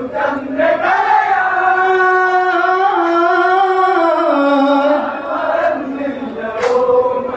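Onamkali folk song being sung: one long held, wordless note that steps down in pitch about five seconds in, then a brief sharp sound near the end.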